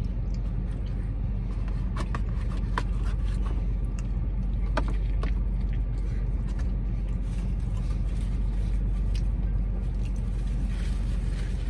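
Steady low hum of a car idling, heard from inside its cabin, with a few faint clicks and rustles from eating and handling food.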